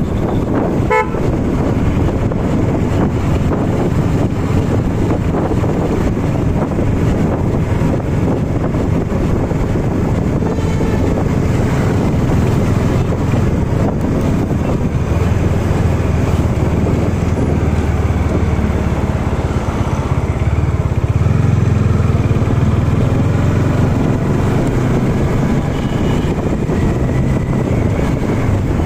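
Bajaj Dominar 400's single-cylinder engine running at steady city cruising speed, heard from the rider's seat together with rushing wind on the microphone. A short horn toot sounds about a second in.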